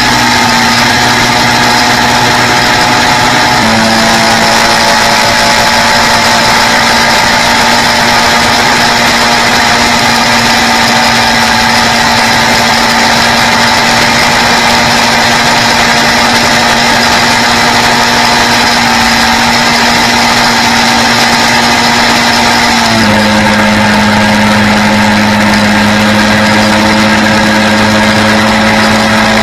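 Quad bike engine running steadily at cruising speed, with a constant rushing noise behind it. Its pitch steps up slightly a few seconds in and drops noticeably about three-quarters of the way through.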